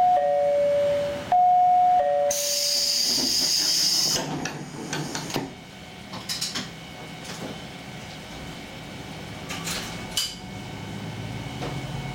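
A falling two-note chime from a stopped diesel railcar, heard through once and partly before that, then a loud burst of air hiss lasting about two seconds. Quieter clunks and clicks follow, and a low engine hum rises near the end.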